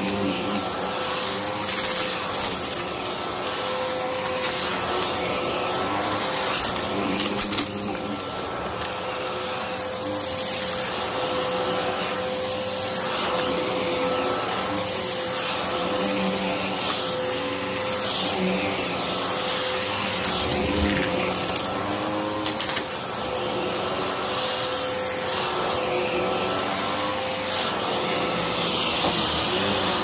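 Hoover bagless upright vacuum cleaner running steadily on a shag rug, its motor giving a constant airy roar under a steady whine. Scattered clicks come from grit and small debris being sucked into the nozzle.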